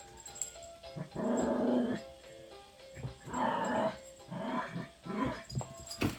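A dog making low growly vocal noises, four short bouts under a second each, over faint background music.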